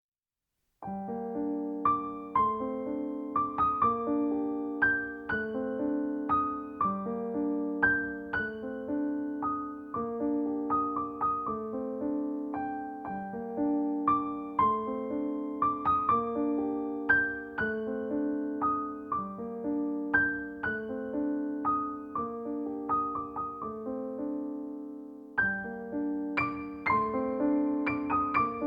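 Piano music playing a gentle, repeating pattern of struck notes and chords, starting about a second in.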